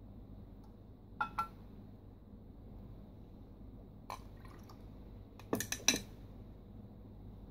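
Glass clinks and ice cubes rattling as an amber drink is poured from a small glass over ice in a larger glass: two light clinks about a second in, one around four seconds, then a quick cluster of sharper clinks just before six seconds, the loudest of them.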